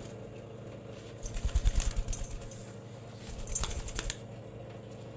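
Pet parakeets moving about: a run of soft wing flutters about a second in, then a few light clicks of claws or beak near the end, over a faint steady hum.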